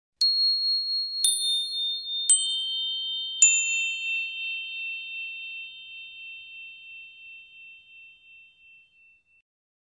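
Four high, bell-like chime notes struck about a second apart, each one lower than the last. The notes overlap and ring on, slowly dying away.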